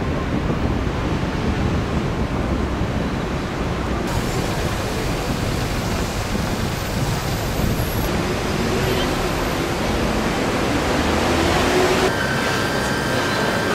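Steady outdoor noise, heavy in low rumble: wind on the microphone and city traffic. The sound changes about four seconds in, and a faint steady high tone joins near the end.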